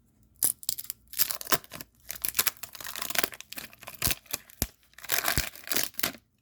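Paper trading card pack wrapper being torn open and crinkled: a run of sharp crackles and tearing noises that stops shortly before the end.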